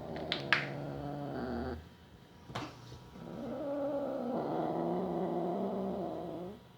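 A cat growling in two long, low, drawn-out growls, the second starting about three seconds in, with a few sharp clicks between them.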